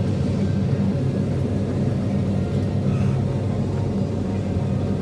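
Passenger train running slowly through a station, heard from inside the carriage: a steady low rumble with a low hum.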